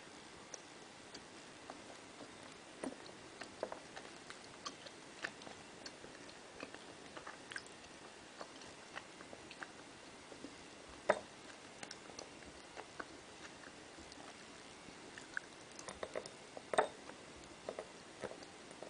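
Gummy bears being picked up and placed one by one on a stack by fingers: faint, irregular soft clicks and sticky taps, with a louder click about eleven seconds in and a cluster of them near the end.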